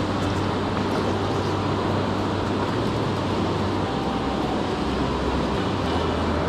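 Steady rushing of river water, an even roar without a break.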